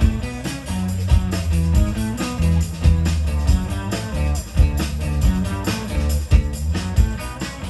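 Live rock band playing, with a repeating bass line, a steady drum-kit beat and guitar.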